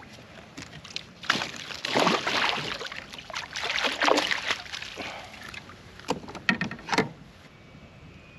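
Water sloshing and splashing against a plastic kayak, with a few sharp knocks near the end.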